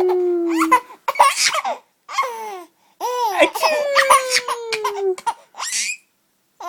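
A baby laughing in reaction to a sneeze: long, falling squeals broken by short bursts of laughter.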